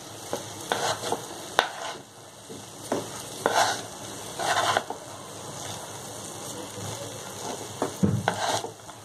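Wooden spatula stirring and folding rice and vegetables in a frying pan, a short scrape with each stroke at irregular intervals, over a faint steady sizzle from the hot pan.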